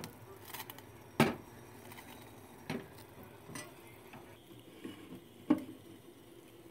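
Coca-Cola boiling in a stainless steel saucepan on a gas burner: irregular pops and ticks over a faint background hiss, the loudest pop about a second in.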